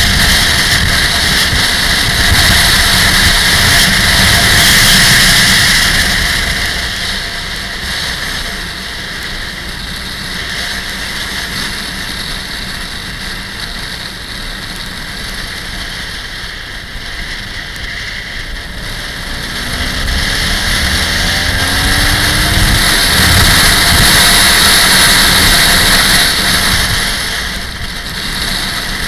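Motorcycle riding on an open road: wind rushing over the microphone with the engine running underneath. It quietens for a stretch in the middle, then grows louder again with a rising engine note about twenty seconds in as the bike accelerates.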